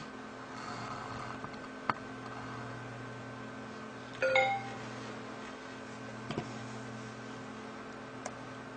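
Maxtor hard drive spinning with a steady hum after a PCB swap. About four seconds in, a short computer chime of a few ringing notes sounds as the drive is recognised over USB, with a couple of faint clicks around it.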